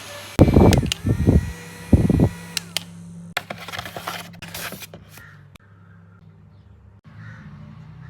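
Mini handheld fan running with a thin high motor whine while its airflow buffets the microphone in three loud gusts; the whine cuts off a little under three seconds in, followed by clicks and rustling of handling.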